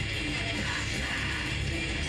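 Death metal band playing live: a dense, steady wall of electric guitar and bass with no let-up.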